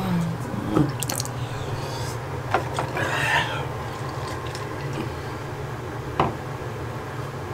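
Bathroom sink tap running and water dripping as a mug is filled, with a few sharp knocks and a steady low hum underneath.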